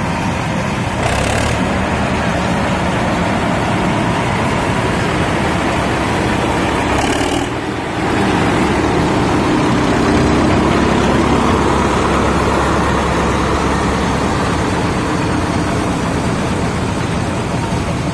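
Old tractor engines running steadily as vintage tractors drive by. The sound dips briefly about seven and a half seconds in, then comes back a little louder.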